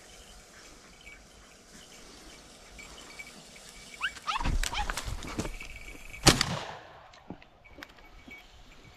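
Podenco hounds yelping and barking in short bursts from about four seconds in, with one loud sharp bang about two seconds later.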